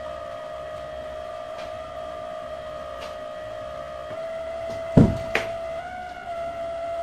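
A single loud bang about five seconds in, like a door slamming in the house, with a smaller knock just after. Under it, a steady high drone that steps up slightly in pitch twice.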